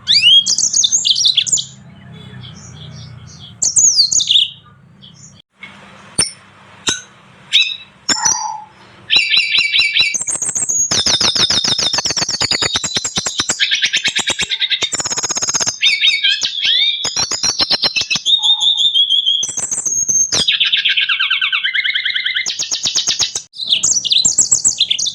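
Small finches singing: scattered short high chirps at first, then from about nine seconds in a nearly continuous fast twittering song full of rapid trills.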